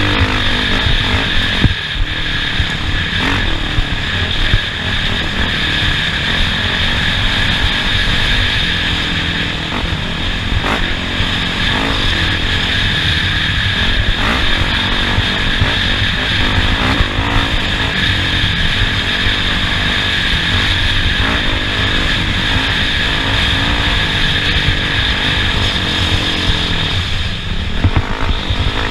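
Off-road race vehicle engine running hard and revving up and down as it is driven over a dirt course, with a steady hiss and occasional knocks.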